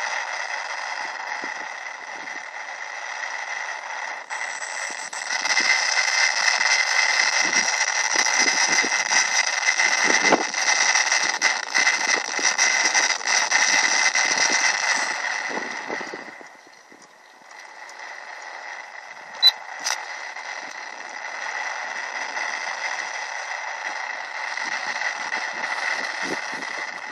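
Electric motor and propeller of a Techone Mercury FPV model plane in flight: a thin, hissy drone that gets louder about five seconds in and falls away around two-thirds through, then comes back more quietly. Two sharp clicks come just after the drop.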